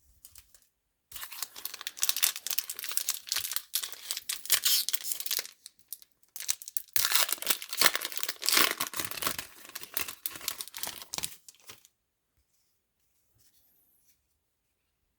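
Wrapper of a baseball card pack being torn open and crinkled, in two spells of crackling rustle about five seconds each.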